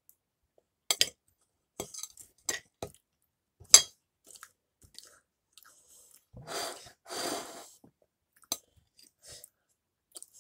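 Close-up chewing and crunching of a pastry tartlet, broken by sharp clicks of a metal fork on a plate, the loudest just under four seconds in. Two longer hissy stretches come about two-thirds of the way through.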